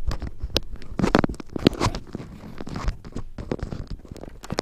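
Close rustling, scratching and knocks of a lapel microphone being handled inside a motorcycle helmet, a dense run of short irregular clicks and scrapes.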